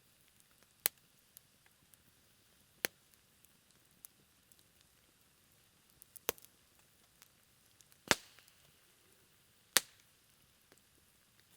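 Low campfire of burning wood crackling quietly: a handful of sharp, separate pops at irregular intervals over faint ticking.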